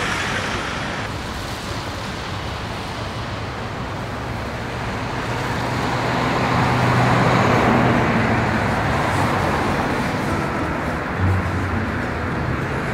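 Road traffic noise: a steady hum of engines and tyres, swelling as a vehicle passes about seven seconds in and then easing off.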